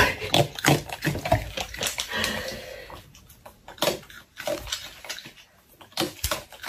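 Thin plastic cup crinkling and crackling as a raccoon handles and chews it, in irregular crackles and rustles that are busiest in the first three seconds and sparser after.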